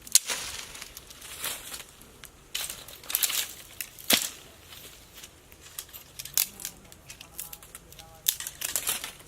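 Irregular crinkling and crackling handling noises, with a few sharper snaps: near the start, several around three seconds in, and a strong one about four seconds in.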